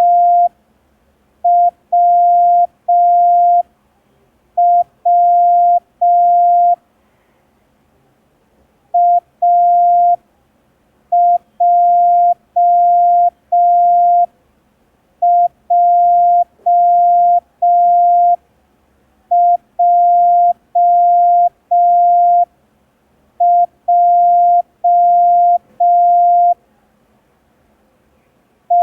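A Morse code practice tone: one steady beep keyed in dots and dashes, slowly sending single letters from the set A, W and J, with a pause of a second or more between letters, for copying practice.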